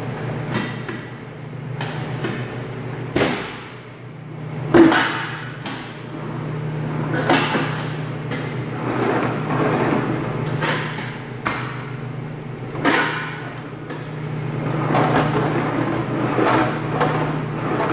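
Irregular metallic knocks and clanks as stainless-steel band saw parts are handled and fitted into place, the sharpest knock about five seconds in, over a steady low hum.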